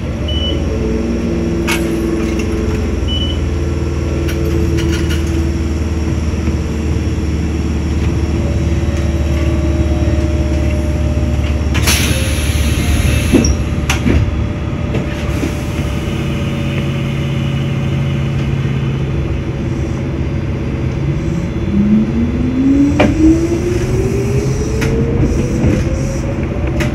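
Electric commuter train standing with its equipment humming steadily, with a short burst of air hiss about halfway through. Near the end the traction motors start a rising whine as the train pulls away and speeds up.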